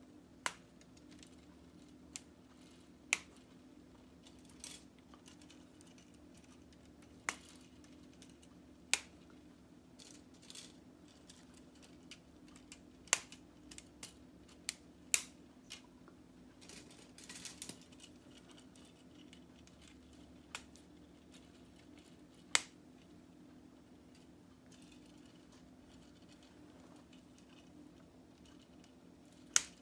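K'nex plastic rods and connectors clicking as spokes are snapped and handled: sharp single clicks at irregular intervals, a dozen or more, with a brief flurry about halfway through, over a faint steady hum.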